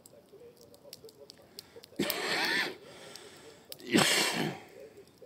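Campfire crackling faintly with scattered small snaps, broken twice by a loud breathy rush, each under a second long and about two seconds apart.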